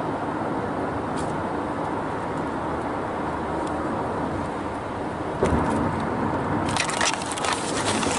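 Steady road and engine noise of a car driving, heard from inside the cabin. About five and a half seconds in there is a thump, and near the end dense crackling clicks come in over the drone.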